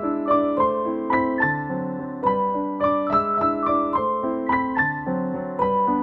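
Background piano music: a steady, even run of struck notes over sustained lower notes.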